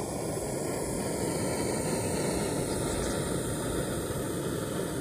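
Backpacking gas canister stove burning under a stainless pot, a steady hiss from the burner.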